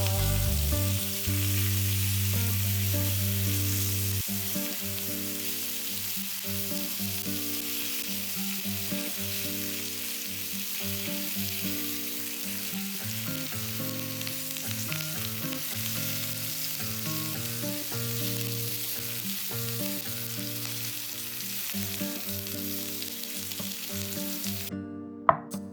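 Food sizzling in hot oil in a frying pan, a steady hiss that stops shortly before the end, followed by a sharp click.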